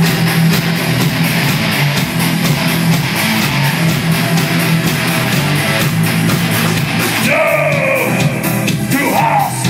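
Rock band playing a heavy metal song: distorted guitars over drums, with a new higher held line gliding in pitch over the mix from about seven seconds in.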